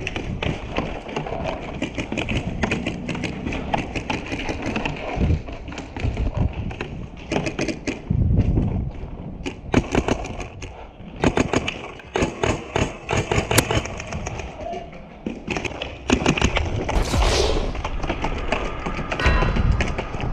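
Paintball markers firing: many sharp pops in irregular quick strings, thickest around the middle.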